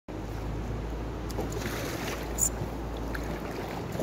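Steady rush of river water around an inflatable kayak moving downstream, with a low rumble underneath and one brief sharp click about two and a half seconds in.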